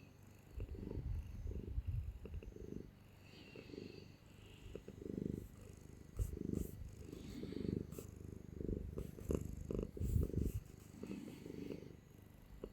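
Domestic cat purring, a low rumble that swells and fades in a steady rhythm.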